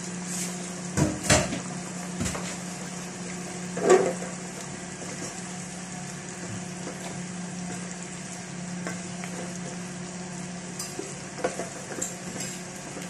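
Chicken pieces and chopped onion sizzling in a pot of soy sauce while a wooden spatula stirs them, knocking against the pot a few times, loudest about four seconds in. A steady low hum sits underneath.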